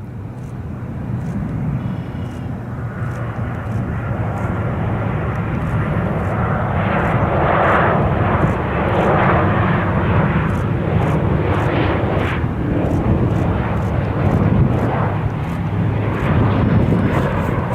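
Jet airliner engines passing close by, a steady rumbling roar that grows louder over the first several seconds and then stays loud.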